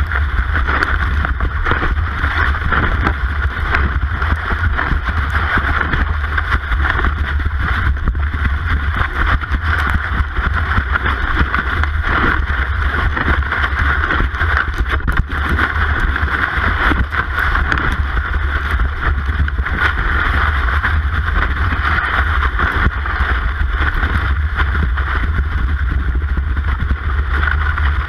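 Cross-country ski gliding and striding in a classic track, heard through a camera fixed to the ski: a steady scraping hiss over a constant low rumble of vibration and wind on the microphone.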